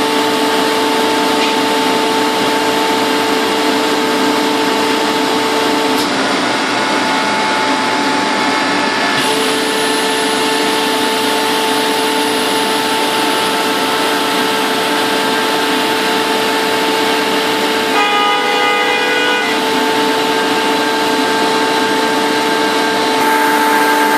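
Screw air compressor running: a loud, steady hiss with whining tones that shift in pitch a few times, and a brief higher, multi-toned whine about three-quarters of the way through.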